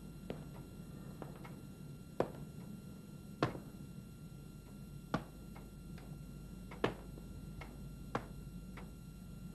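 Slow footsteps on a hard floor: sharp clicks at an uneven pace, a louder step every second and a half or so with fainter ticks between, over a low steady hum.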